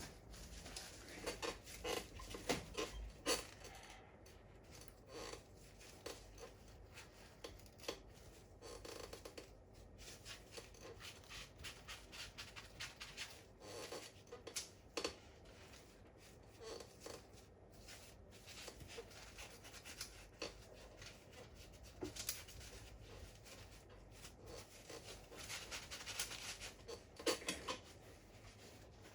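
Irregular small clicks, taps and scraping of hands and tools working on an opened laptop, taking out its internal parts.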